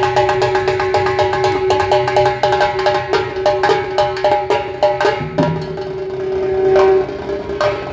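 A conch shell (shankh) blown in one long, steady note that swells louder near the end, over a fast, even run of ringing percussion strikes, about five or six a second.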